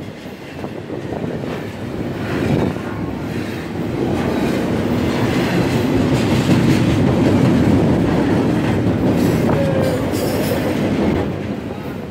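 Intermodal freight train's cars rolling past close by: a steady rumble of steel wheels on rail that grows louder through the middle.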